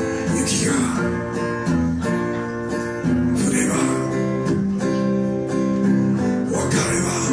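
Acoustic band playing an instrumental passage: acoustic guitars strumming chords, with held notes ringing over them and a strong strummed accent about every three seconds.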